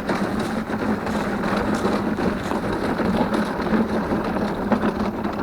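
A wheeled walk-behind yard vacuum being pushed over pavement before it is started: a steady rolling, rattling noise.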